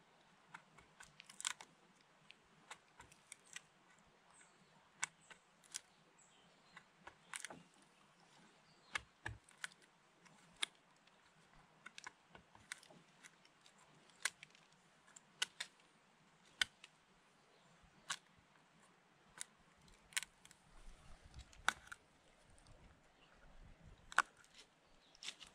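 Scattered sharp clicks and ticks, one or two a second at irregular intervals, over a faint hiss.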